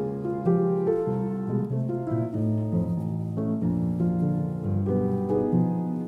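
Background music led by piano, a slow melody of held notes.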